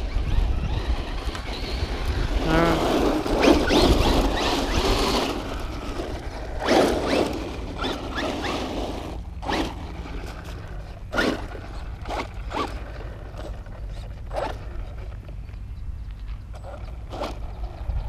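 Traxxas Rustler 4x4 RC truck driving on dirt, its electric motor and tyres on the loose surface: one longer run early on, then a few short throttle bursts. Wind rumbles on the microphone throughout.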